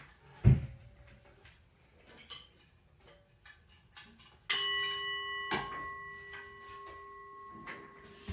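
A low thump about half a second in and scattered light taps, then a sharp metallic strike a little past halfway that rings on as a bell-like tone, slowly fading.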